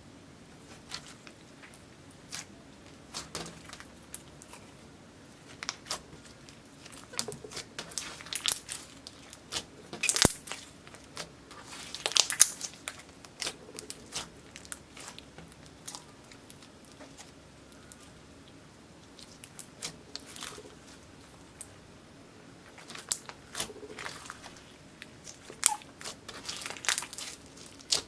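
Slime being worked by hand, giving off irregular sticky crackles and small pops in clusters, with a sparser stretch in the middle.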